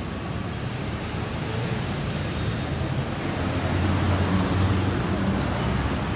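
Street traffic on a busy city road: vehicles passing, with a deep engine rumble that swells about four seconds in.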